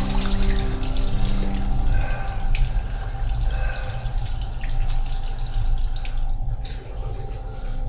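Water running steadily from a bathroom tap into the sink and splashing over hands held under it, with a low steady hum underneath.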